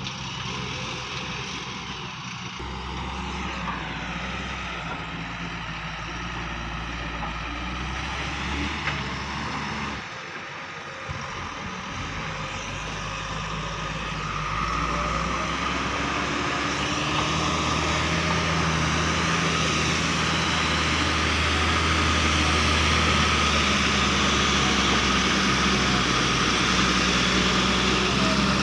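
Heavy diesel engine of a backhoe loader or tipper truck running under load. The engine drops away briefly about a third of the way in, then gets louder through the second half with a steady high whine.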